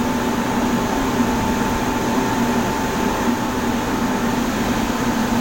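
Air handling unit running, its fan blowing a steady rush of air with a low hum and a fainter higher whine, heard through the unit's open access door.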